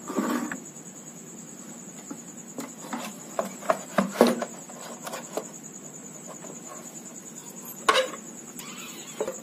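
A mixer grinder motor being set into its plastic base housing and the housing handled and turned over: scattered clicks and knocks of metal on plastic, a cluster about halfway through and a sharp knock near the end, over a steady high-pitched trill.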